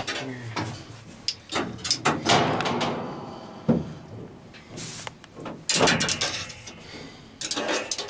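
Irregular knocks, clunks and scraping bursts from handling around the sheet-metal sieves and separator grates of a combine harvester, with one sharp click about midway.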